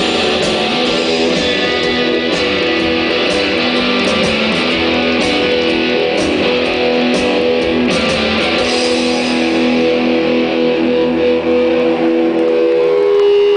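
Live rock band playing loud distorted electric guitars and bass over drums and cymbals. About nine seconds in the drumming stops and the guitars ring on in long held notes.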